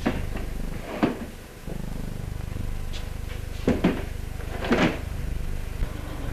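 Wooden or cardboard cases of liquor being stacked, with several dull knocks as the boxes are set down, some in quick pairs, over a steady low hum.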